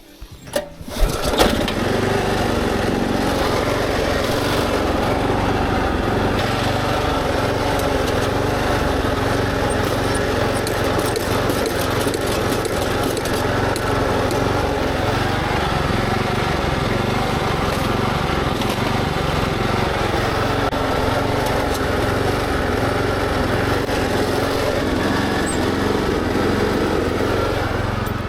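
Kubota SPJ400 rice transplanter's engine running steadily with the planting mechanism turning over idle, without seedlings, as a test run during repair of a planting fault. It starts about a second in.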